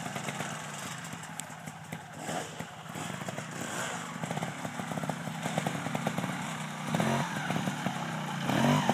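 A 2011 Beta 290 trials bike's two-stroke single-cylinder engine running at low revs as the bike approaches, growing louder. Near the end there are sharper bursts of throttle as the front wheel is lifted onto a log.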